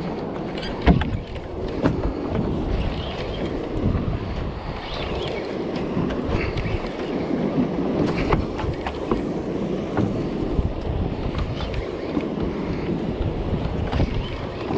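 Wind buffeting the microphone and water sloshing around a small open fishing boat, with scattered clicks and knocks from handling a spinning rod and reel. The sharpest knock comes about a second in.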